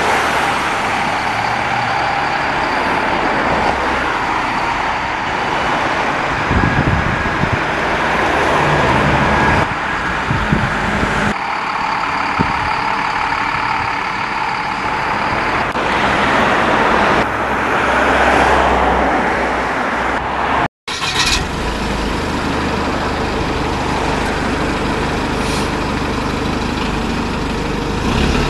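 Diesel engines of single-deck buses running as the buses manoeuvre slowly in and out of a bus depot, with a steady engine hum under general yard noise. A short gap about three quarters of the way through breaks the sound.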